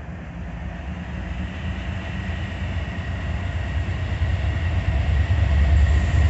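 CSX diesel freight locomotives approaching, their engine rumble growing steadily louder, with a steady high whine above it.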